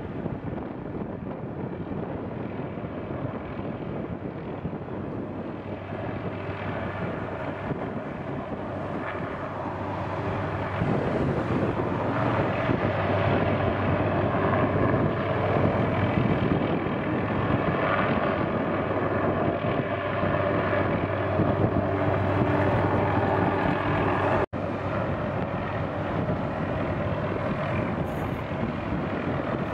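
MD 500-series turbine helicopter hovering, its engine and rotor running steadily, with some wind noise on the microphone. It grows louder a little before halfway through and cuts out for an instant near the end.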